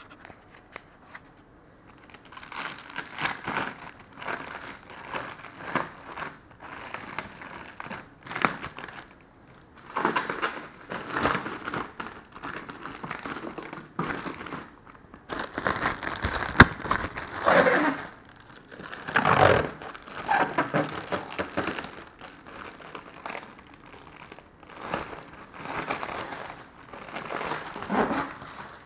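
Clear plastic protective bag crinkling and rustling in irregular bursts as it is handled and pulled off an espresso machine, starting about two seconds in. A single sharp click sounds about halfway through.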